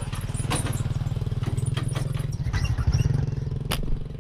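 A small engine running steadily, swelling slightly about three seconds in, with several sharp clicks and knocks over it; the sharpest knock comes near the end.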